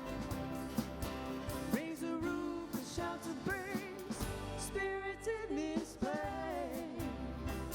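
A song with a lead singer's voice over a band with drums and bass; the sung notes waver with vibrato over a steady beat.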